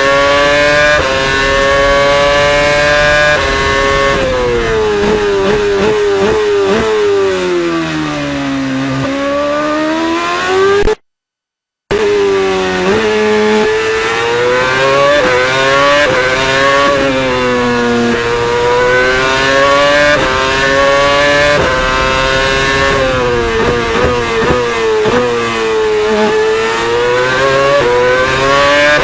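Formula One car's 2.4-litre V8 engine, heard from the onboard camera: it revs up through the gears with quick stepped upshifts, then falls away through runs of downshifts into corners before climbing again. The sound cuts out completely for about a second just before the midpoint.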